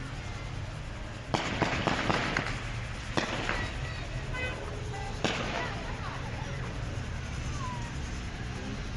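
Sharp bangs: a quick string of several about a second and a half in, lasting about a second, then single bangs about three and five seconds in, over a steady street background.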